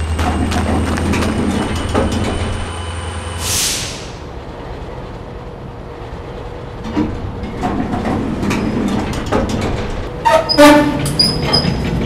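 Diesel locomotive sound effects: a low engine rumble with a faint high whine that cuts off with a sharp hiss about three and a half seconds in, then, after a quieter stretch, a run of metallic clanks and knocks with brief squeals, loudest near the end.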